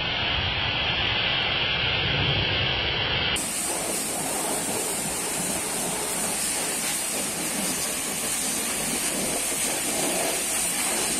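High-pressure water spray from pressure-washer wands hitting a truck, a steady hiss. About three seconds in the sound changes abruptly, losing its low rumble and becoming a higher, thinner hiss.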